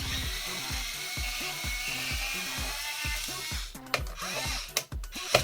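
Electric precision screwdriver's small motor whirring as it unscrews laptop CPU cooler screws, with a few sharp clicks near the end. Background music with a steady beat plays underneath.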